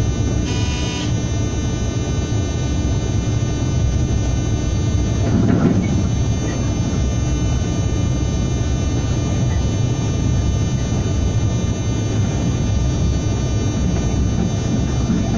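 Cab interior of a ČD class 163 electric locomotive running at speed: a steady rumble with a constant high whine. A short electronic beep sounds about half a second in, and a brief heavier rumble comes about five and a half seconds in.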